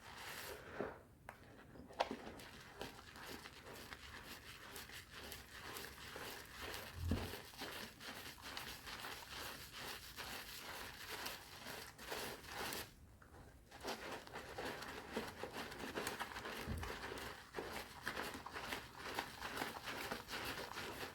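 A strawberry bar soap with powder added being lathered into thick foam: a steady wet crackling from the foam, with a short pause about two-thirds of the way through before it picks up again.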